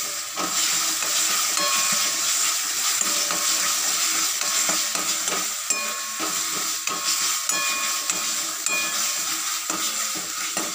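Cauliflower-leaf paste sizzling in hot oil in a metal kadai while a metal ladle stirs and scrapes it, with frequent clinks and brief ringing tones from the ladle against the pan.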